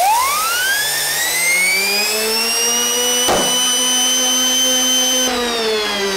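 3D-printed two-stage centrifugal compressor spinning up with a steeply rising whine that settles into a steady high whine. About three seconds in, a balloon on its outlet bursts with a single sharp pop. Near the end the whine begins to fall as the compressor slows.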